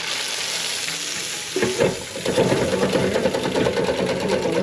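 Panko-breaded crappie fillets deep-frying in hot peanut oil in an electric deep fryer, sizzling and bubbling. About a second and a half in, the hiss gives way to a denser, lower crackle.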